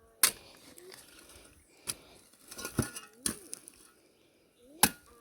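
Four sharp knocks and scrapes of a tool working manure into soil inside an old refrigerator bed, with short rising-and-falling clucks from chickens in between.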